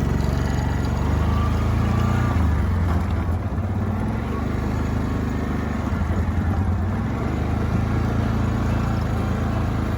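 An engine running steadily with a low, even throb.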